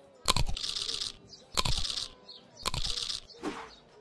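Cartoon crunching sound effect, three bites about a second apart, each a sharp crunch trailing into a short hiss, with a fainter one near the end.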